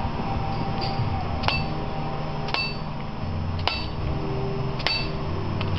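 Rubber mallet tapping a tapered roller bearing onto a Torsen differential, about five light strikes roughly a second apart, each leaving a short metallic ring. It is the start of a very tight press fit, the bearing not yet seated.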